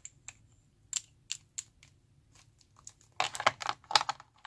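Scattered light plastic clicks and taps, then a burst of crinkling and clicking about three seconds in, as tubes of nail extension gel are moved about in a thin plastic packaging tray.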